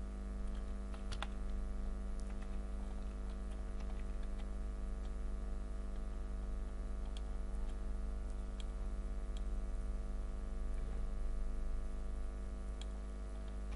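Scattered single clicks of a computer keyboard and mouse, a few seconds apart, over a steady electrical hum.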